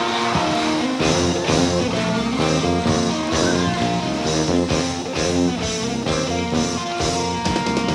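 Live rock band playing an instrumental passage: guitar over bass and drums, with a steady beat that comes in strongly about a second in.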